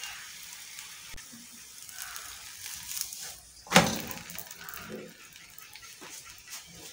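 A single sharp knock a little under four seconds in, as a paratha is flipped over on a flat tawa griddle, with faint low kitchen sounds around it.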